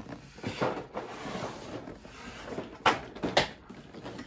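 A cardboard board-game box and its pieces being handled and packed away: rustling and scuffing, with two sharp knocks about three seconds in, half a second apart.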